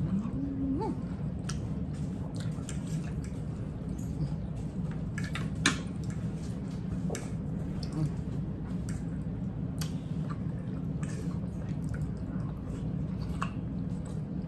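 Two people eating fried chicken with gravy: wet chewing and mouth sounds, with scattered short clicks of forks against plates, the sharpest about six seconds in. A steady low hum runs underneath.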